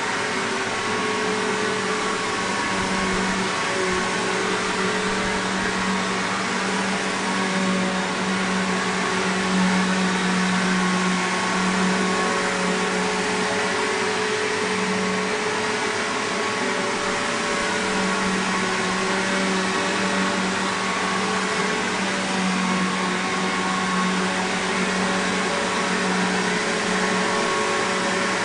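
2010 Bissell PowerGlide Platinum (3545-2) bagged upright vacuum cleaner running steadily: a rush of air under a steady whine, with a low hum that swells and fades over a few seconds at a time.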